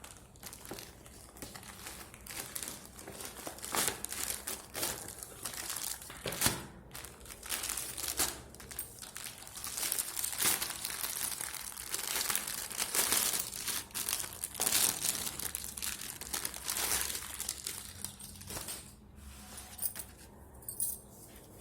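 Parcel packaging being opened by hand: continuous crinkling and rustling with some tearing, busiest in the middle and thinning out near the end.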